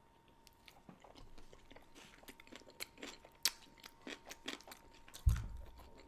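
Person chewing food close to the microphone: irregular wet mouth clicks and smacks, with a low thump about five seconds in.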